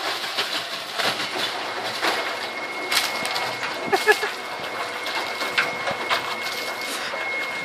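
Ice rattling and clattering inside a cement mixer's steel drum full of ice water: a steady churning noise with scattered sharp knocks, and a faint steady high hum underneath.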